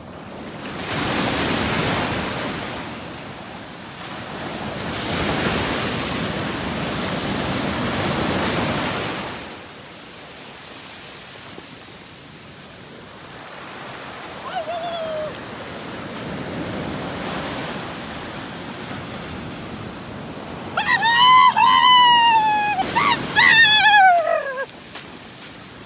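Sea waves surging and washing against the shore in two long swells, then easing off. Near the end come a few loud, high-pitched cries that rise and fall in pitch.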